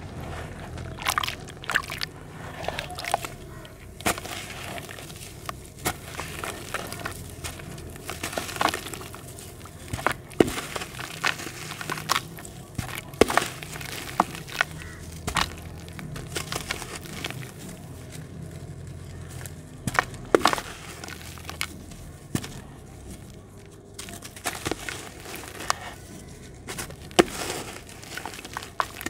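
Dry red dirt lumps crumbling in the hands: irregular crunchy cracks, with loose grit pattering into a basin of muddy water.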